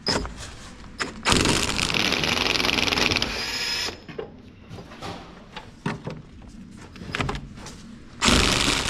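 Impact wrench hammering on a rusted Beetle body-to-chassis bolt in two bursts, one of about three seconds soon after the start and another near the end. The bolt does not shift, and a breaker bar is needed for it.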